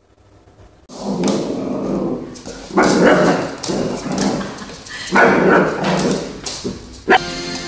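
A small white fluffy dog barking over and over in play at its own reflection in a mirror, starting about a second in. Music starts just before the end.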